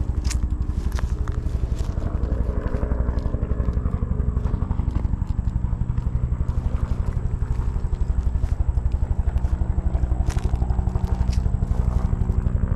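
Bell UH-1 "Huey" helicopter rotor beating in a fast, steady pulse, a little louder in the second half. Footsteps crunch through dry brush, with a few sharp twig snaps.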